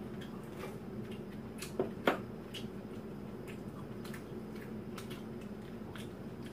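Light clicks of chopsticks and dishes at a meal, with two sharp knocks about two seconds in as a bowl is set down on the table, over a steady low hum.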